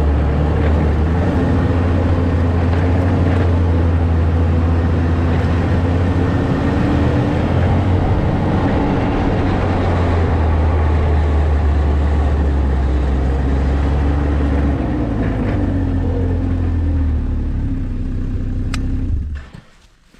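Snowmobile engine running steadily while the machine travels over snow, with a strong low hum. It eases off a little and then falls away abruptly near the end.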